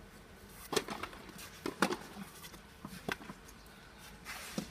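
Tennis ball knocking on an artificial-grass court, five or so sharp, irregular thuds, as a player bounces the ball between points.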